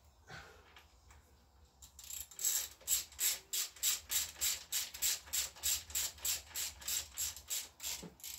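Socket ratchet clicking in quick, regular strokes, about three a second, as the exhaust mounting bolts on a Honda Vision scooter are tightened; it starts about two seconds in.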